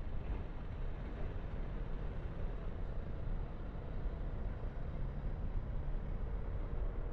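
Car driving along: a steady low rumble of engine and tyre noise.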